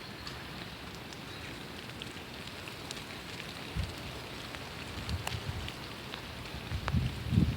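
Steady rain falling on a surface, with scattered sharp drop ticks and a few low rumbles, the loudest near the end.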